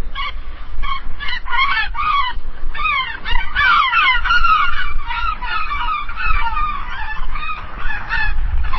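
A flock of gulls calling over one another: short repeated cries and longer falling calls, thickest in the middle, over a faint low rumble.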